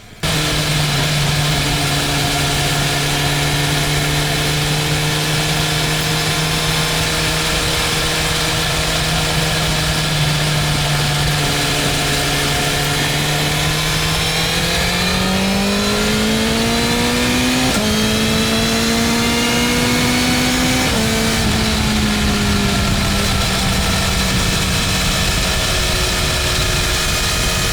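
BMW M1000R motorcycle's inline-four engine pulling at a steady cruise, with a constant hiss of wind and road. About halfway in the revs climb under acceleration, with a break in the note at a gear change. The engine then settles back to a steady, slightly higher cruise.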